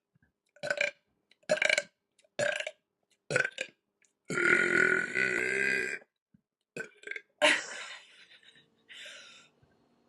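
A woman burping repeatedly. Four short burps come first, then one long burp of nearly two seconds about four seconds in, then a few shorter ones, the last one fainter.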